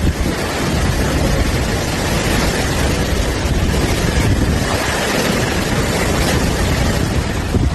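Strong storm wind: a steady, loud rushing, with gusts buffeting the microphone.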